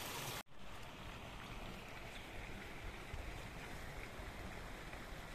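Faint, steady rush of the flooded river's flowing water, cut off by a brief dropout about half a second in.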